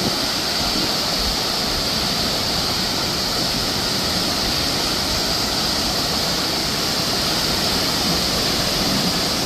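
Tokopah Falls waterfall rushing steadily: an even, unbroken hiss of falling water.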